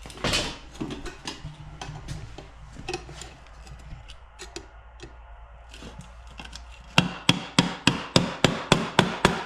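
Hammer blows on steel while trying to break loose a stubborn spot weld on a car's sub rail. Scattered light taps and knocks come first, then a quick run of about ten hard strikes, roughly four a second, near the end.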